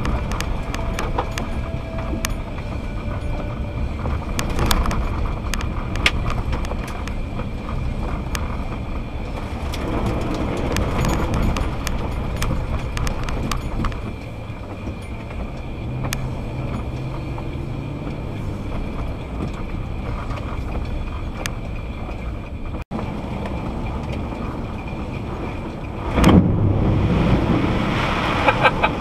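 A car driving on wet roads, heard from a dashcam inside the cabin: a steady rumble of engine and tyres with scattered sharp clicks. Near the end the car ploughs into deep floodwater, and a sudden loud rush of water sprays against the body and windshield.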